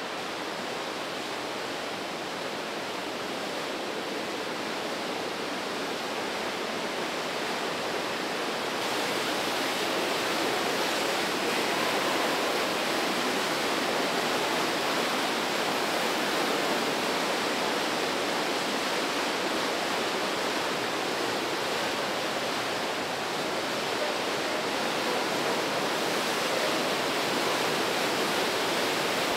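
The Breitach river rushing through a deep, narrow gorge: a steady wash of white-water noise that grows louder about nine seconds in.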